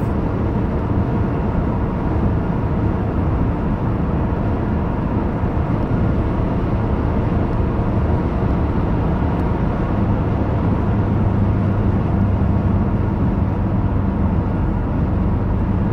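Steady road noise inside a car cruising on a highway, with a low hum.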